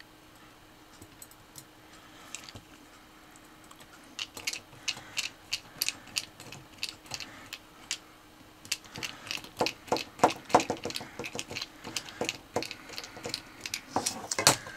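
Small screwdriver and tiny machine screws clicking and tapping against the aluminium chassis plate and motor mounts as the motor screws are driven in. Scattered sharp clicks start about four seconds in and come thicker and louder from about nine seconds in.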